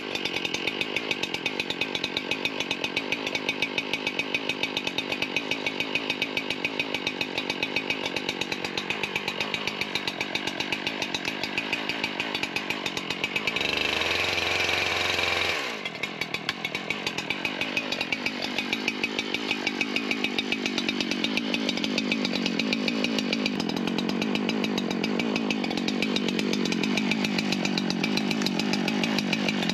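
Husqvarna chainsaw idling with an even pulsing beat. About halfway through it is briefly revved, then drops back to idle.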